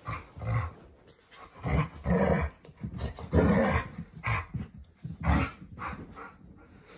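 Alaskan malamutes, an adult and a young puppy, growling and grumbling at each other in play, in a string of short bursts.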